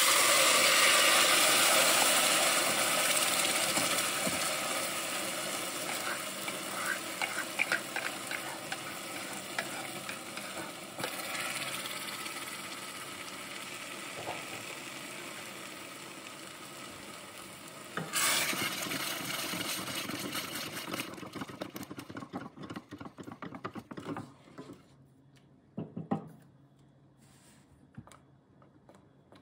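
Thick puréed curry sauce poured into hot oil in a stainless steel saucepan, setting off a loud sizzle with spitting pops that slowly dies away. A second sizzle rises about eighteen seconds in, then fades to scattered crackles, with a couple of soft knocks near the end.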